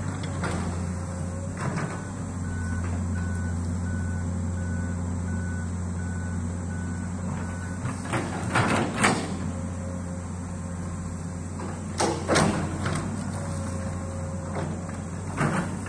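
Distant Komatsu amphibious excavator's diesel engine running steadily. Its alarm sounds a run of short, evenly spaced beeps, about two a second, for several seconds early on. Scattered clanks and short squeals come from the machine as it works.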